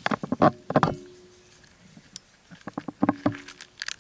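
Rope-climbing hardware clacking as the climber moves up the rope: two bursts of quick knocks, one at the start and one about three seconds in, each followed by a brief ringing tone.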